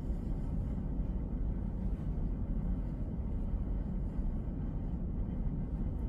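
Steady low background rumble of room noise, even throughout, with no distinct events.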